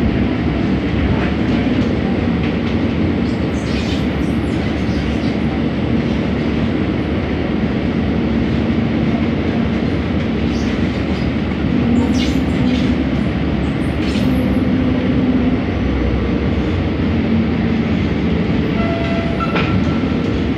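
Cabin noise of a Scomi/MTrans KL Monorail two-car train running along its elevated beam: a steady rumble of rubber tyres on the concrete guideway with a low motor hum that swells and fades. A few brief high squeaks come through, and short tones sound near the end.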